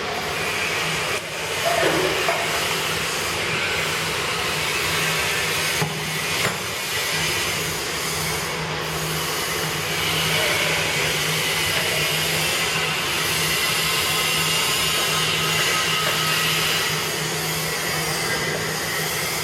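Powder grinding machine running: a steady loud whir and hiss from its motor and grinding chamber over a constant low hum.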